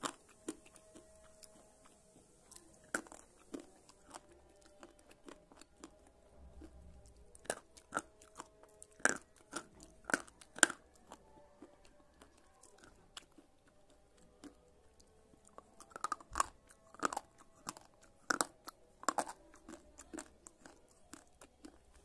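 Slate pencils being bitten and chewed: sharp, dry crunches that come in bunches with quieter pauses between.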